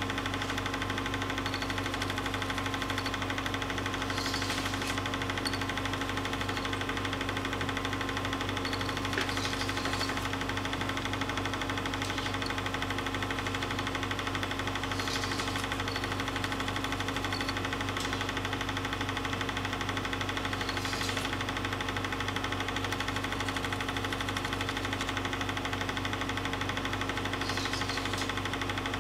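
A home-movie film projector running: a steady motor whir with the rapid, even clatter of the film advancing. A faint brief squeak recurs about every six seconds.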